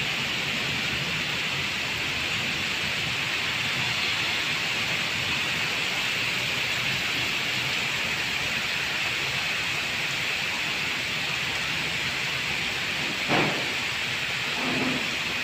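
Heavy rain pouring steadily, with a brief sharp crack about thirteen seconds in.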